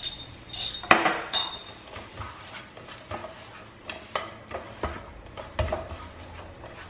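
A spoon stirring shredded carne seca and seasoning in a cooking pot, with scattered clinks and knocks against the pan, the loudest about a second in.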